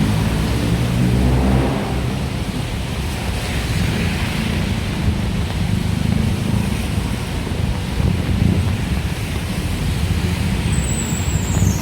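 Steady road traffic: a low rumble of car and vehicle engines passing on a busy city road, with one engine running close by at the start. A brief high squeal falls in pitch near the end.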